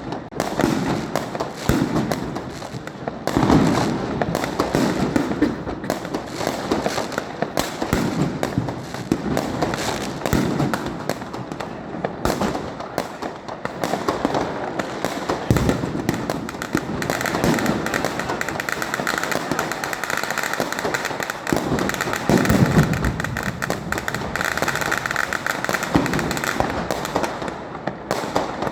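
Fireworks cake firing rapid, continuous shots and crackling bursts, with heavier bangs every several seconds.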